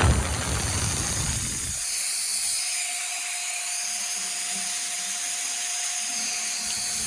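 JISULIFE handheld turbo fan running at high speed: rushing air with a high-pitched motor whine. A low rumble sounds for the first couple of seconds, and a steady mid-pitched tone joins about two seconds in.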